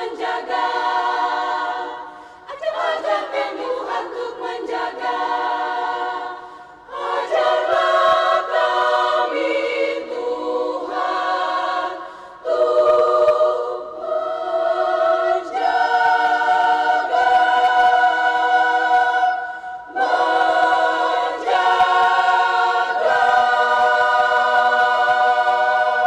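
Women's choir singing a cappella in full chords, phrase after phrase of held notes with short breaks between them, ending on a long sustained chord.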